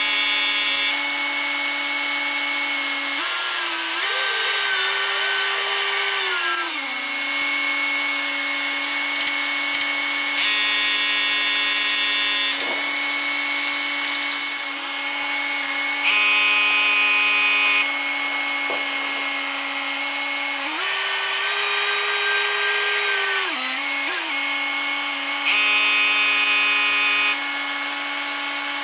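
Mobile crane running with a steady mechanical whine. About three seconds in, and again around twenty-one seconds, the pitch rises as the engine revs up for a few seconds, then slides back down. Three times a brighter, harsher whine joins for about two seconds.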